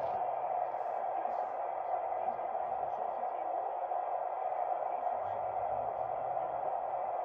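Steady radio static from a scanner's speaker tuned to 27.205 MHz, CB channel 20: an even, band-limited hiss centred in the midrange.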